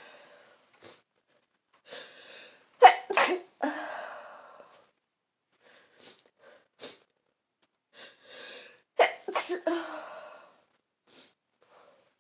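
A person with a full-blown head cold sneezing: two sneezes in quick succession about three seconds in, and another pair about nine seconds in.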